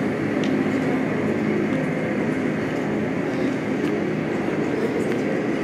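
Airbus A330-300 jet engines at taxi power: a steady whine over a constant rumble as the airliner taxis.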